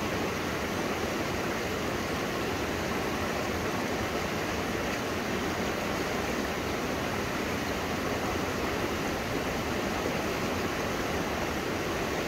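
Shallow river running over and between boulders: a steady rush of flowing water.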